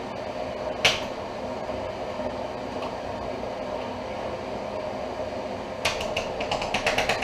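Spatula clicking against a butter tub and frying pan as butter is scooped into the pan: one sharp click about a second in, then a quick run of about eight clicks near the end, over a steady hum.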